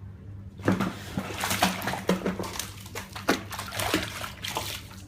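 Irregular wet splashing and slapping sounds, starting a little under a second in, over a steady low electrical hum.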